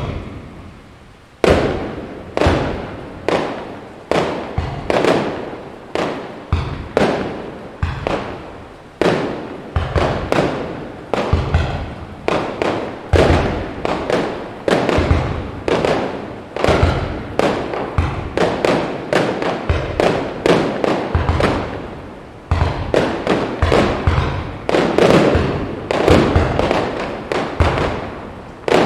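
A fast, unbroken barrage of aerial firework shells bursting, about two bangs a second. Each bang trails off before the next one hits. The barrage begins about a second and a half in, after a quieter moment.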